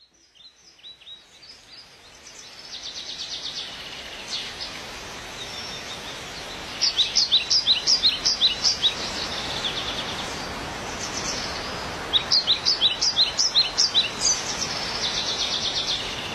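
Small birds singing and calling over steady outdoor background noise. Two runs of about ten quick, downward-slurred chirps come about seven and twelve seconds in, with fast buzzy trills before and after them.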